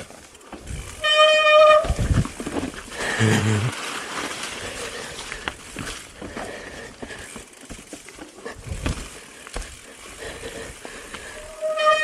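Mountain bike disc brakes squealing in a steady high tone, briefly about a second in and again near the end, over the rattle and knocks of tyres and bike on a rough snowy trail.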